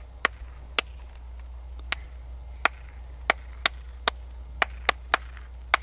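Sharp, short clicks made with a boy's hands, coming at uneven intervals about twice a second.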